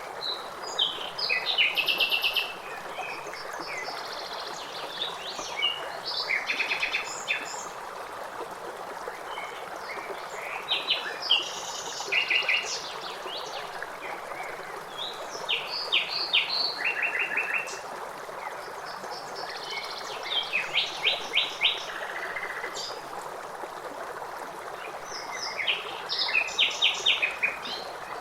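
Songbirds singing short, rapid trilled phrases every few seconds over the steady rush of running water.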